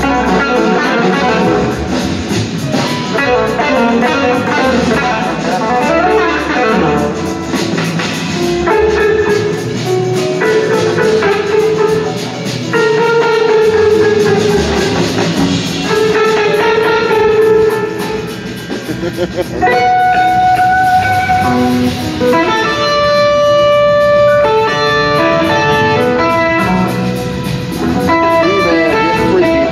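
Live blues-rock band playing, led by electric guitar over drums and bass. In the second half the guitar holds long notes and slides between pitches near the end.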